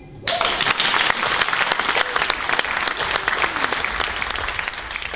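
Audience applause breaking out suddenly just after the start, dense clapping with a few cheering voices in it, slowly dying down toward the end.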